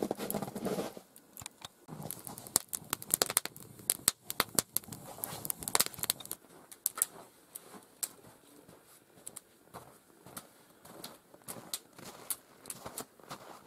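Wood campfire crackling as it burns up, with many sharp, irregular pops and snaps.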